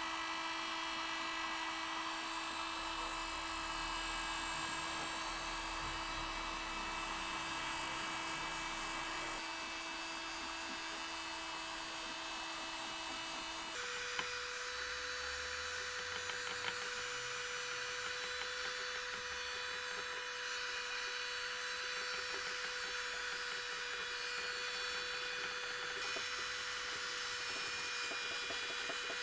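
Small electric power tool motor running steadily with a high whine over a rough grinding noise, its pitch jumping higher about halfway through.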